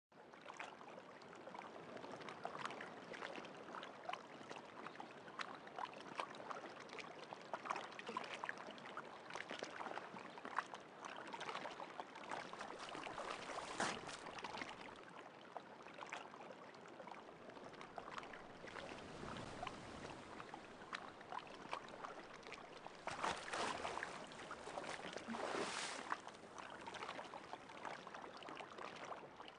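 Water splashing and trickling, with many small irregular splashes and a few louder surges.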